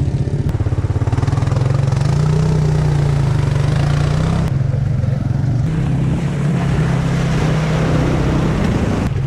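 Engines of an ATV and a Jeep Wrangler running steadily under load as they push through shallow muddy water, with water churning and splashing.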